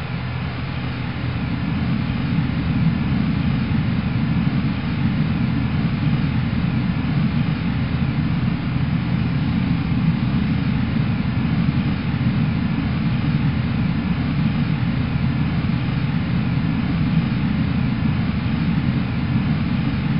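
Steady low rumble with no distinct blast or impact, swelling slightly in the first two seconds and then holding level.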